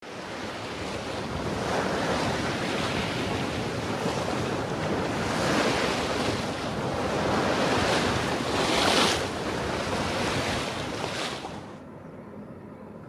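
Wind buffeting the microphone over the rush of sea water past the hull of a sailing yacht under sail, swelling and easing in surges. Near the end it drops suddenly to a much quieter hush.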